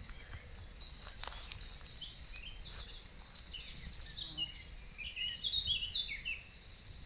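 Small woodland birds singing: a busy run of short, high chirps and quick trills, growing denser about two-thirds of the way through, over a low steady rumble.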